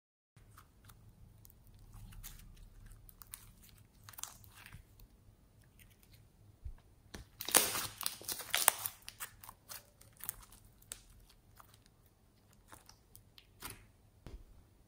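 Fingers squeezing and pressing soft purple slime, making small sticky crackles and clicks. The crackling is thickest and loudest about seven to nine seconds in.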